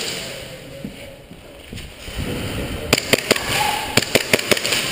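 A quick, irregular run of about eight sharp cracks, starting about three seconds in and lasting under two seconds: shots in an indoor mock-combat shooting game.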